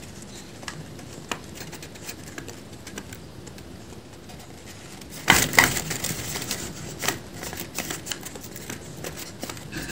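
A folded paper dragon puppet handled close up: paper clicking and crackling as its jaw is worked, with a louder burst of paper rustling about five seconds in.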